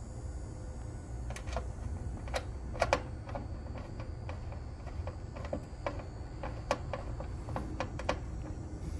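Screwdriver tightening the terminal screws on a disconnect's ground bar to land the ground wires: a string of light, irregular clicks, a few a second, starting about a second in.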